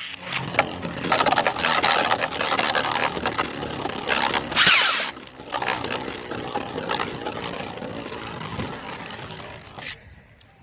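3D-printed Beyblade spinning tops whirring and clashing in a plastic stadium, with many rapid clicks of contact and a louder clash about halfway through; the spinning noise stops with a sharp click near the end.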